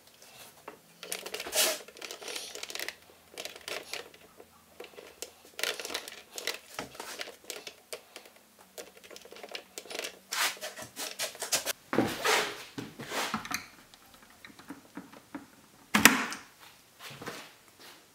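Hard plastic clicks, taps and rattles as a GoPro camera housing and its plastic mount are handled and fitted onto a motorcycle helmet's curved adhesive mount, with a sharp knock near the end.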